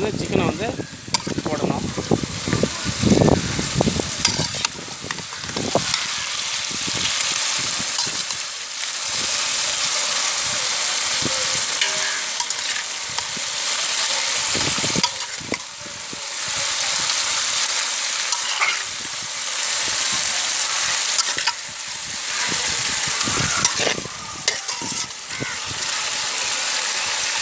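Raw chicken pieces sizzling as they are ladled into hot oil with onions and tomatoes in a large aluminium pot, a steady frying hiss that swells and dips every few seconds. A metal ladle clinks and scrapes against the pot and bowl now and then.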